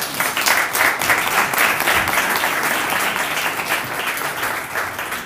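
A small roomful of people applauding, a round of clapping that is loudest in the first couple of seconds and tapers off near the end.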